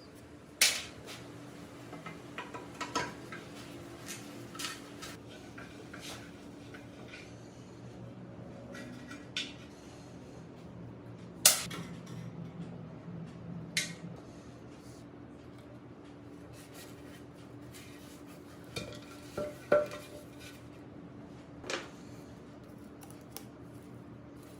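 Metal parts clinking and knocking as they are handled and set down, in scattered sharp strikes, the loudest about half a second in, midway and about three quarters through, over a steady faint hum.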